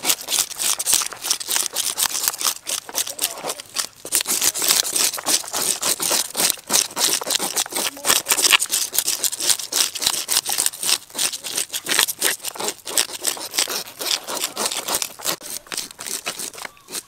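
Fish being scaled by hand: rapid, continuous rasping strokes of two scaling tools scraping scales off whole fish on wooden chopping boards.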